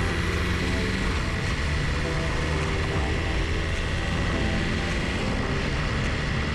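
Motorcycle engine running steadily while under way, with road noise.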